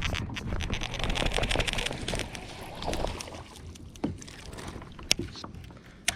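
Sounds of hooking and bringing in a small largemouth bass from a kayak: a sharp knock at the start, then about a second and a half of dense, rapid rattling, then scattered clicks and knocks from the rod, reel and boat.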